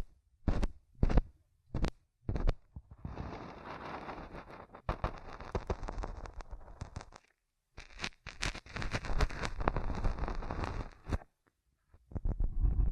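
Close-miked ASMR trigger sounds: a few short, separate sharp sounds in the first couple of seconds, then two stretches of dense crackling a few seconds each, with a brief silence between them.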